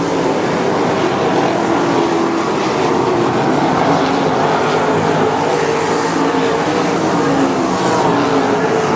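A field of 305 winged sprint cars racing, their V8 engines running hard together in a loud, steady mix of overlapping engine notes.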